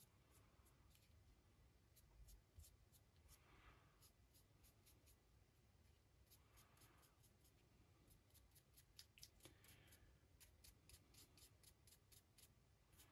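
Near silence: faint ticks and light scratching of a small paintbrush stroking paint onto a resin miniature figure. A soft rush comes about every three seconds.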